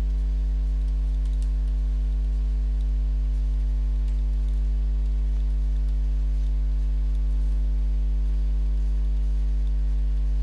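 Steady low electrical hum, a mains-frequency buzz with its overtones, with a few faint clicks over it.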